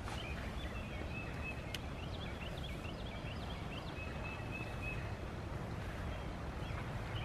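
Faint bird chirps and short calls over a steady low background rumble, with one sharp click a little under two seconds in.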